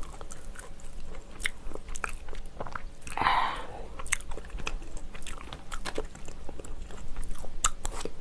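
Close-miked eating sounds: wet clicks and smacks of stewed cabbage kimchi being pulled apart by hand, with chewing, and a louder wet rasp about three seconds in.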